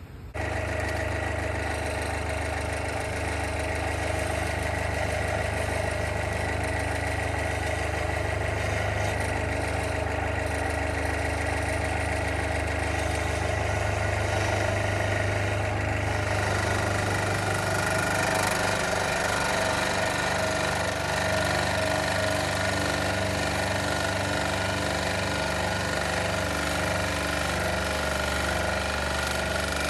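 An electric power tool running continuously as it works a Micarta knife-scale blank, a steady motor hum whose tone shifts about seventeen seconds in.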